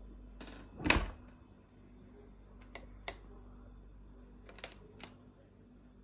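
Beko dishwasher door shut with a thud about a second in, then several short clicks as buttons on its control panel are pressed to select the programme.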